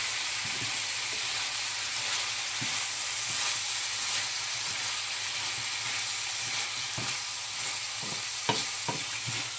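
Mixed vegetables, mostly shredded cabbage, frying with a steady sizzle in a hot pan as a wooden spatula stirs and turns them. Near the end come a few sharp scrapes and knocks of the spatula against the pan.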